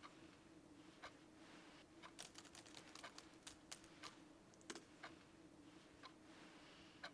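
Faint, irregular keystrokes on a MacBook laptop keyboard, some in quick runs of a few keys, over a low steady hum.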